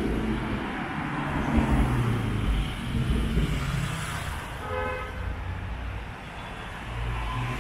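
Street traffic on a busy city avenue: vehicle engines running and tyres on the road, with one short car horn toot about five seconds in.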